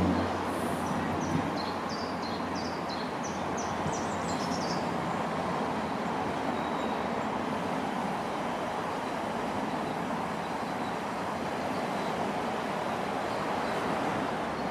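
Class 465 Networker electric multiple unit approaching along the rails, a steady rumble of wheels and running gear as it draws up to the platform. Short high bird chirps sound in the first few seconds.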